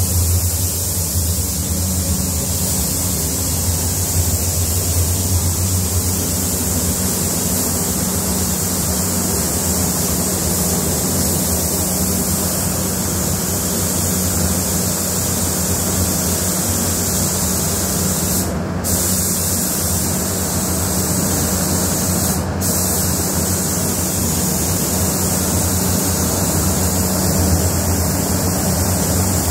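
Compressed-air spray gun hissing steadily as it sprays paint onto a car body, over a steady low hum. The hiss breaks off briefly twice in the second half.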